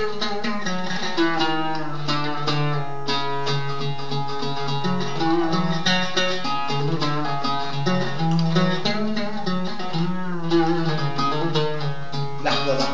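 Oud played solo: a flowing melody of quick plucked notes.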